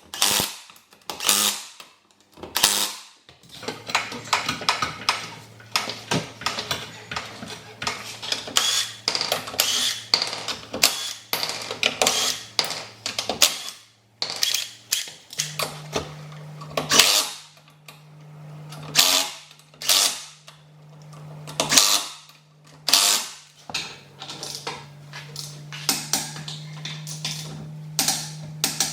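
Impact wrench rattling in short bursts, again and again, on wheel lug nuts during a wheel change. A steady low hum runs underneath and steps up in pitch about halfway through.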